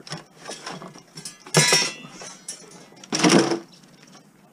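Salvaged metal parts from a commercial washing machine clattering as they are handled and sorted. Two loud clangs, the first with some ringing, come about a second and a half apart, among lighter knocks.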